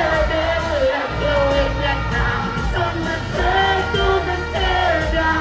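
Live dancehall performance over a PA: a deejay chants and sings into the microphone over a riddim with a heavy bass beat.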